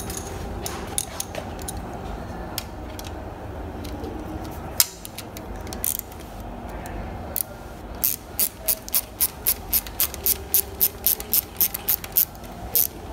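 Ratcheting ring spanner tightening a nylock nut on a bolt: a few scattered metal clicks at first, then from about eight seconds in a steady run of ratchet clicks, about three a second, as the spanner is swung back and forth.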